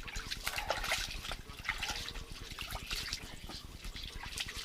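Water splashing and trickling in an ice-fishing hole, with many small irregular clicks over a low steady rumble.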